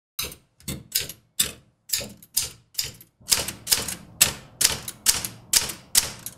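Typewriter typing a short line: about fifteen sharp key strikes, two to three a second, with the carriage stepping along.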